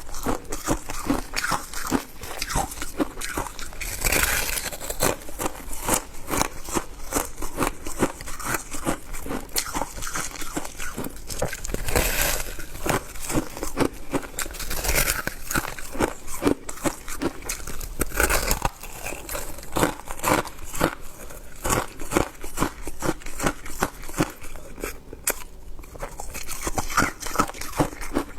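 Shaved ice being chewed close to the microphone: a dense, irregular run of crunching and crackling, with brief louder bites scattered through.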